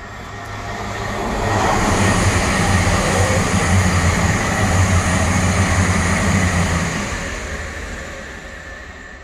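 East Midlands Railway passenger train passing through the station at speed without stopping. A rushing noise and a steady low hum build over about two seconds, hold, then fade away near the end.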